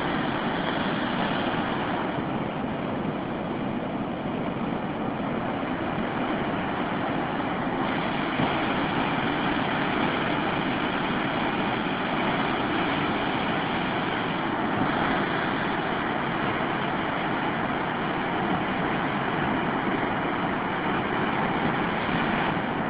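A river in flood rushing steadily: fast floodwater churning through large standing waves.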